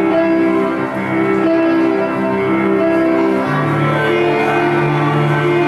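Instrumental music: sustained notes changing about every second, with a lower held line coming in about three and a half seconds in.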